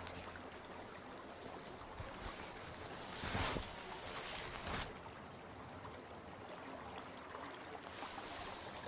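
Faint steady outdoor background hiss, with two brief soft swishes about three and a half and five seconds in.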